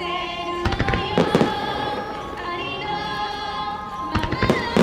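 Fireworks shells bursting in quick clusters of sharp bangs, a few at a time, about a second in and again near the end, over loud music played for the show.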